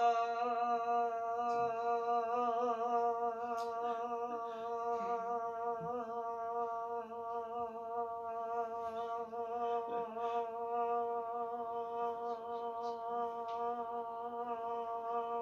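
A woman humming one unbroken note on a single breath, held as long as she can in a timed endurance contest. The pitch wavers a little in the first few seconds, then holds level.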